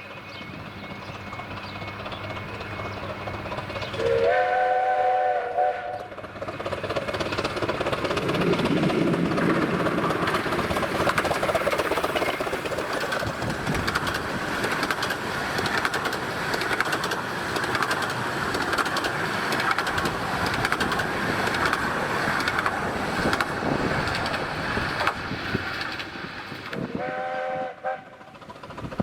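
A 15-inch gauge steam locomotive sounds a short chime whistle about four seconds in, its notes sliding up as it opens. A long stretch of train running noise follows as it passes. The same whistle sounds again near the end.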